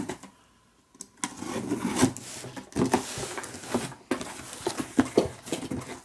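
A shipping box and its packaging being opened and handled by hand: a sharp knock, about a second of quiet, then repeated scraping, rubbing and knocking of cardboard.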